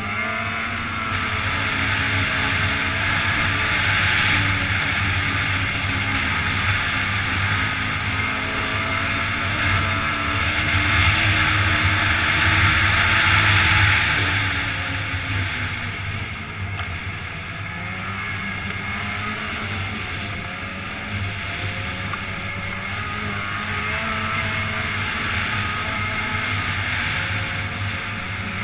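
Polaris snowmobile engine running under way along a groomed trail, its pitch rising and falling with the throttle; the engine is loudest a little before halfway and then eases off.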